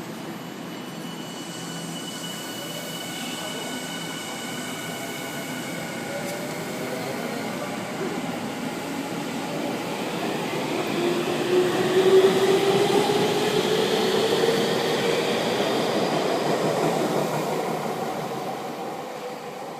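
Electric commuter train moving through the station, its traction motors whining with a pitch that rises steadily as the train gathers speed. The train sound grows louder to a peak about midway, then fades as it pulls away.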